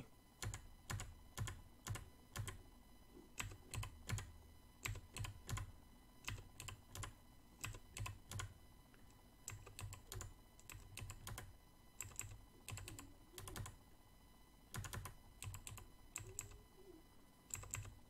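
Kailh Box Navy clicky keyboard switches pressed over and over, fitted with keycaps and O-rings in a foam-dampened keyboard: a run of sharp clicks, about two a second, with a few short pauses.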